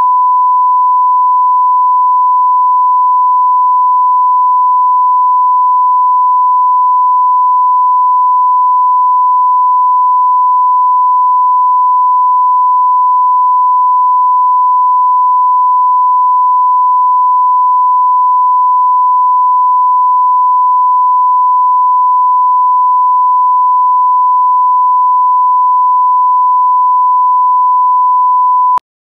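1 kHz line-up tone, the steady reference sine tone that goes with broadcast colour bars for setting audio levels. It is loud and unchanging and cuts off suddenly near the end.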